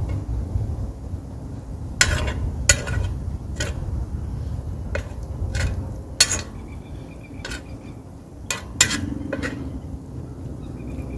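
A utensil scraping and clinking against a spun steel camp oven lid as chicken curry is stirred in it, in about a dozen irregular strokes. Wind rumbles on the microphone underneath.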